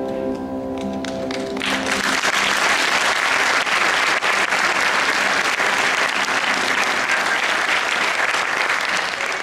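Orchestral music ends on a held chord about a second and a half in, and then a theatre audience applauds steadily.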